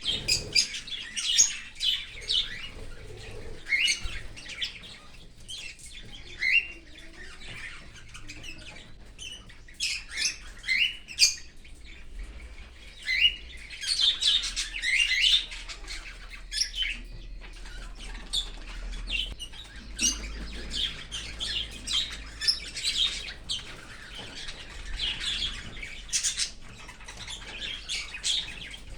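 Cockatiels chirping and squawking in an aviary: many short, high calls come in irregular clusters, some sliding up or down in pitch.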